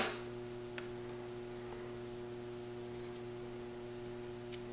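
Steady electrical mains hum, one low tone with evenly spaced overtones, with a couple of faint ticks about a second in and near the end.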